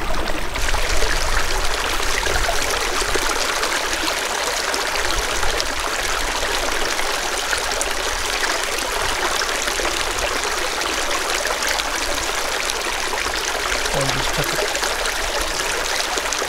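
Small mountain creek running steadily, an even rush of water trickling over rocks.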